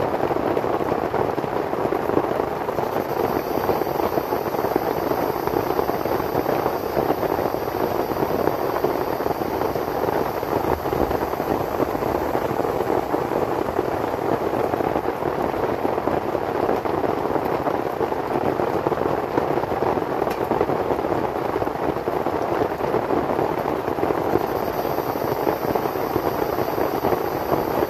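Heavy rain falling steadily on the tent and tarp overhead, a dense, even patter of drops.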